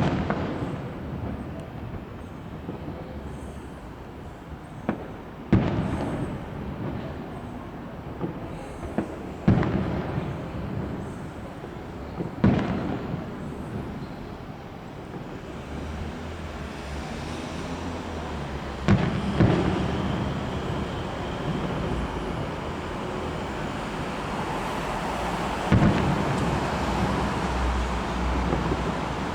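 Aerial fireworks shells bursting: a series of sharp, loud booms a few seconds apart, each trailing off in a rumbling echo, over a continuous background of noise between the bursts.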